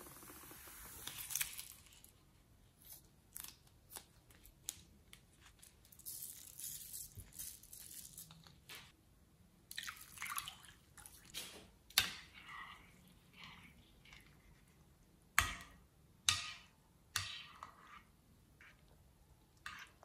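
Faint crackling and sticky handling sounds of glittery slime in a glass bowl, with liquid poured in from a cup about halfway through, then stirred with a spoon. Several sharp clicks stand out in the second half.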